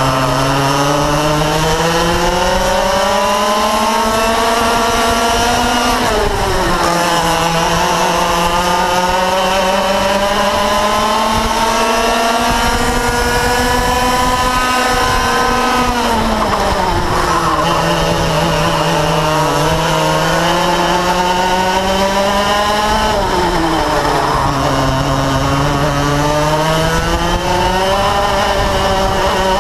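Yamaha KT100 single-cylinder two-stroke kart engine at racing speed, heard onboard. Its revs climb steadily along the straights and drop sharply three times as the kart slows for corners.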